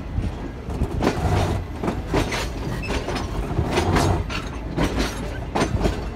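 Moving passenger train, heard from the coach doorway: the wheels rumble steadily on the track, with sharp clacks and clanks coming every half second to a second.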